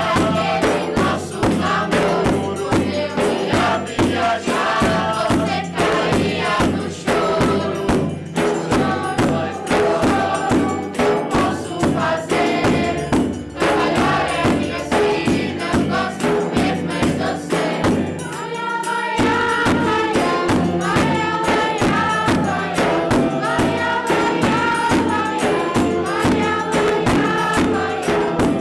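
Choir singing a Brazilian popular song in unison, backed by hand percussion keeping a steady, fast beat. About 18 seconds in there is a short break before the singing and percussion come back in together.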